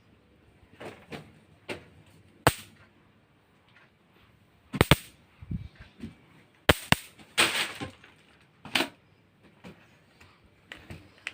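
A run of sharp snaps and cracks, about a dozen at irregular intervals, one a little after the middle drawn out into a short crackle.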